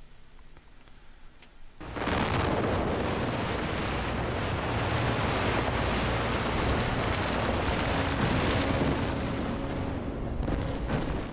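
Virtual-world explosion sound effect of a coal-mine blast detonating. It starts suddenly about two seconds in, and a dense, deep, steady blast noise holds for about nine seconds before cutting off abruptly near the end.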